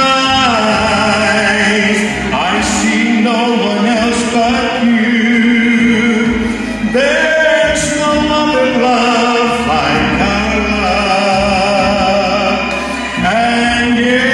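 A man singing a slow love song into a microphone over accompanying music, drawing out long held notes with vibrato and sliding up into a new note about seven seconds in.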